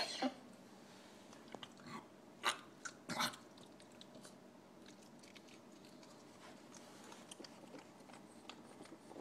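A pug's coughing fit tails off, followed by short wet mouth and throat sounds like smacking and licking, with two louder brief ones about two and a half and three seconds in and faint clicks after.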